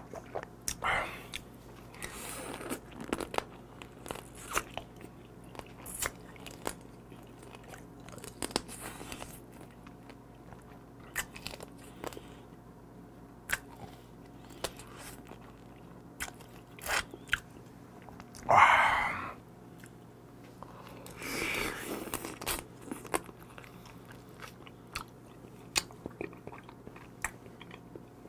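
Close-up eating sounds of soy-marinated raw blue crab: teeth crunching through thin crab shell in many sharp cracks, with wet chewing between them. Two longer, louder noises come about two-thirds of the way through.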